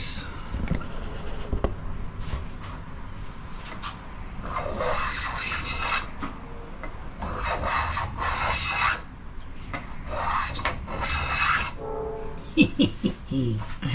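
Tiny Japanese hand plane shaving a narrow strip of Australian ironbark, taking fine wispy shavings. Three clear long strokes about three seconds apart, each lasting about a second and a half.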